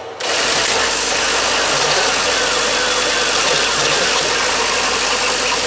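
Dense, steady din of a pachinko parlour, with faint falling electronic chirps in it. It starts abruptly just after the opening.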